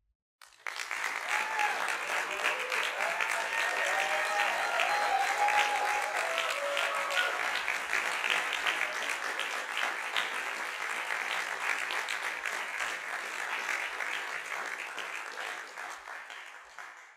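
Audience applauding, starting abruptly about half a second in and fading away near the end, with a few cheers in the first half.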